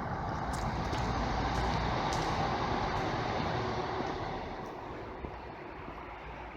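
A road vehicle passing by, its tyre and engine noise rising over the first few seconds and then fading away.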